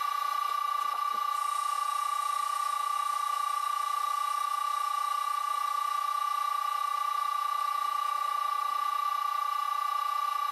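Vintage Karger lathe running at 60 Hz on its VFD-driven electric motor: a steady high-pitched whine with several fainter steady tones above and below it.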